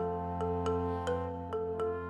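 Background music: a bright melody of struck notes over a held low chord.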